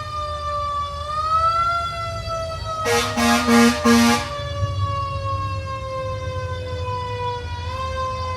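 A siren wails on a single tone, rising a little about a second in and then sliding slowly down in pitch. Three short air horn blasts cut in over it about three seconds in.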